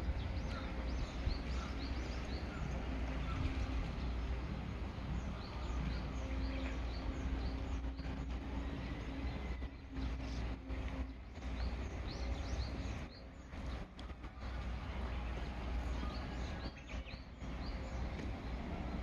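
Small birds chirping repeatedly in short high calls over a steady low rumble of outdoor background noise.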